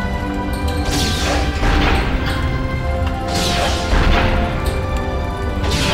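Dramatic film soundtrack: sustained music over a deep rumble, broken by three heavy crashing impacts, each fading out slowly. They come about a second in, just past three seconds, and near the end.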